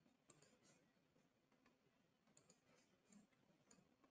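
Near silence, with a few faint computer mouse clicks spread through it.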